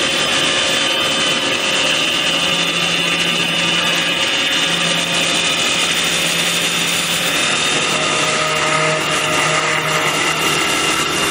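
Tianjiao automatic CNC wood lathe turning a sofa leg: the cutter working the spinning wood blank over the lathe's motor, a steady, loud cutting noise.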